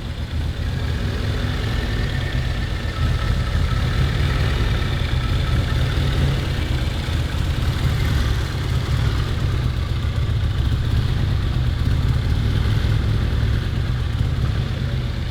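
Freshly rebuilt turbocharged EcoBoost four-cylinder stroker engine in a Ford Focus ST running steadily at idle, a little louder from about three seconds in. It runs with its rear main mount off, so the engine shakes too much, and it rattles because the downpipe rests against the floor tunnel.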